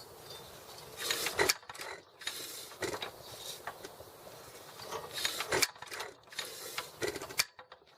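Irregular metallic clanks, clicks and rattles in a few separate clusters, from hands-on work on an antique hit-and-miss engine. There is no steady firing beat, so the engine is not running.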